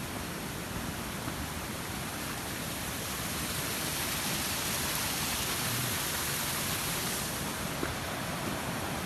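Steady rushing noise that swells somewhat in the middle and eases off near the end.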